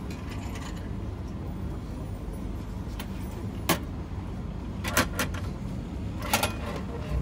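A few sharp clicks and knocks in the second half as the ramen vending machine's hinged pick-up flap is pushed open and a bowl of ramen is lifted out, over a steady low hum.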